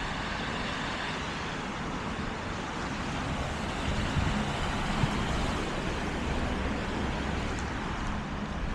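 Steady outdoor background noise: an even hiss with a low rumble underneath and no distinct events.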